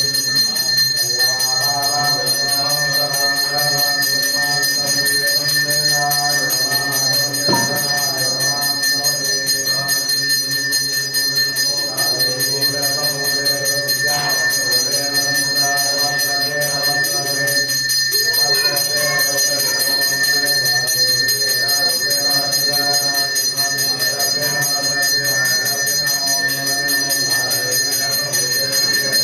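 Temple bell ringing steadily and without a break, its high ringing tones holding constant throughout.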